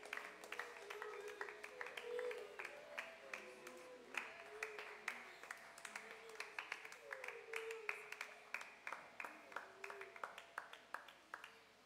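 Scattered hand clapping from a group of people, many quick irregular claps with faint voices underneath, thinning out near the end.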